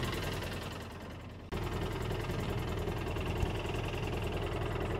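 2013 Polaris Ranger 800's twin-cylinder engine idling at about 1200 rpm and missing: a broken wire inside the fuel-injector harness is making a cylinder misfire. The sound dies away over the first second and a half, then cuts back in suddenly and runs steadily.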